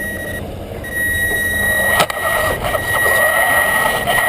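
Electric motor of a Traxxas Slash RC truck whining at a steady high pitch, breaking off briefly near the start, over a rushing noise. A single sharp click about two seconds in.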